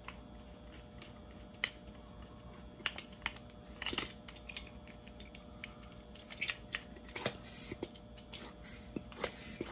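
Scattered small plastic clicks and taps from a handheld ball pump being fitted together, its inflation needle being worked into the nozzle.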